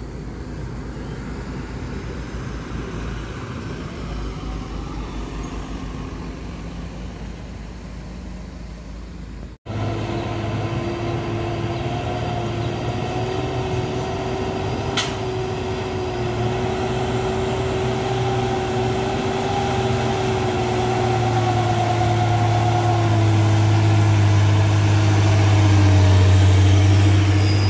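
Loaded cargo truck's diesel engine labouring up a steep grade at a steady note, growing louder as it comes close, its pitch sagging slightly near the end. Before a cut about a third of the way in, the engines of a car and a truck climbing further off.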